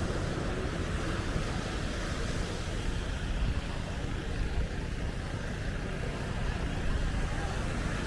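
Steady din of road traffic mixed with ocean surf, with no single event standing out.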